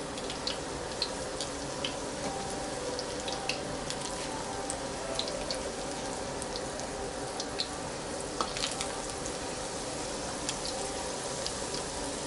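Philly cheesesteak egg rolls deep-frying in hot oil in a pan: a steady sizzle with scattered crackling pops.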